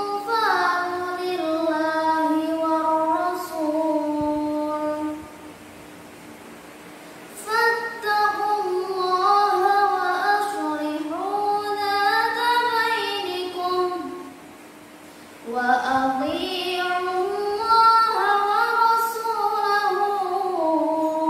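A young girl chanting Quran verses in the melodic tilawah style: three long, ornamented phrases that glide up and down in pitch, with a pause of about two seconds after the first and a shorter one after the second.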